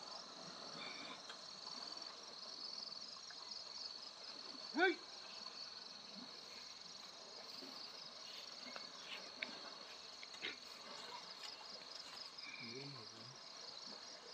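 Crickets chirring steadily in a fast, pulsing trill. About five seconds in, a single short rising call sounds, and a faint voice is heard near the end.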